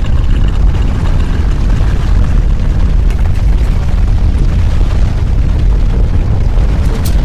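Earthquake sound effect: a loud, steady deep rumble, with a few sharp crackles near the end.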